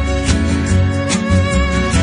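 Instrumental background music with a steady beat: sustained held notes over a pulsing bass.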